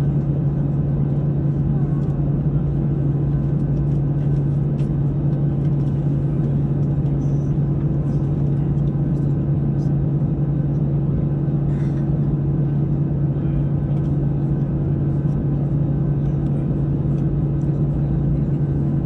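Airbus A320-200 jet engines running steadily, heard inside the passenger cabin as an even drone with a deep hum and a fainter steady tone above it.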